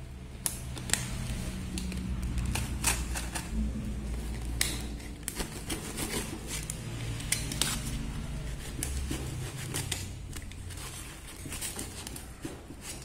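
A cardboard shipping box being handled and opened: a run of irregular sharp clicks, scrapes and rustles of cardboard, over a low rumble of handling noise.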